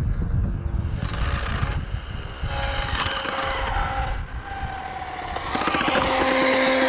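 Arrma Limitless GT electric RC speed car driving back on its blown tires: the electric motor and drivetrain whine in steady tones over a rough rumble of tires on pavement, with the whine strongest near the end as the car comes close.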